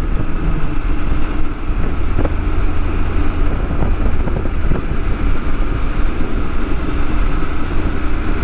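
Motorcycle engine running steadily at cruising speed, a continuous low rumble heard from the moving bike.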